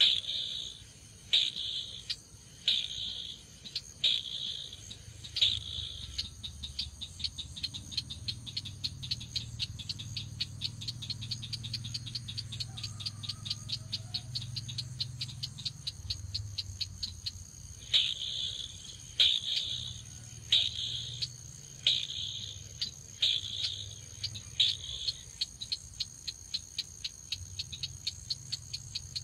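Crake calling: loud single notes about every second and a half, alternating with long runs of rapid hard ticks, several a second. A low hum runs underneath.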